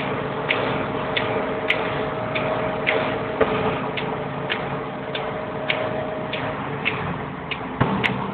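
A car's flasher relay clicking steadily, a little under two clicks a second, as with the indicators or hazard lights on, over the steady engine and road noise in the cabin. A single thump comes near the end.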